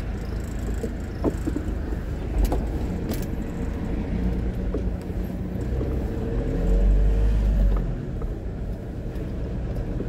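Hyundai vehicle's engine running, heard from inside the cab as a steady low rumble that swells louder for about a second and a half two-thirds of the way through. A few light clicks come in the first few seconds.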